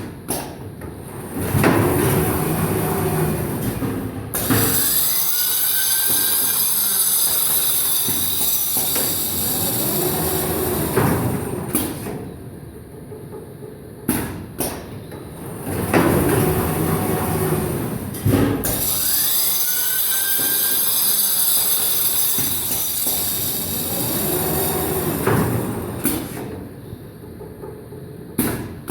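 Automatic film length-cutting machine running through its work cycle twice, about fourteen seconds apart. Each cycle has sharp clicks, a few seconds of mechanical running, then a steady hiss lasting about seven seconds, and ends in more clicks.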